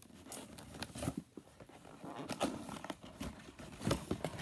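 Cardboard toy box with a clear plastic window being handled and turned over: irregular light taps, knocks and rustles of packaging.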